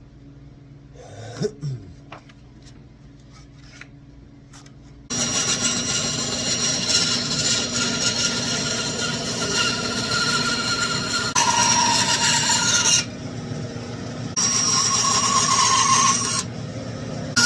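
A few light handling clicks, then about five seconds in a small power tool starts up and sands a lure body, running continuously, its sound growing louder and shriller and dropping back several times as it is worked against the piece.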